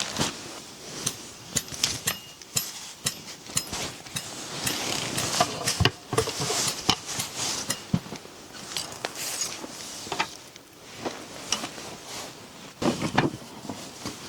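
Objects being handled at close range: irregular sharp clicks and knocks, several a second, with rustling in between.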